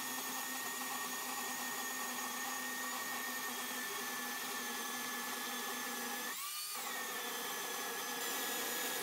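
Electric chainsaw in a homemade chainsaw mill cutting lengthwise through a log, its motor and chain running with a steady whine. About two-thirds of the way through, the pitch rises briefly and then settles back.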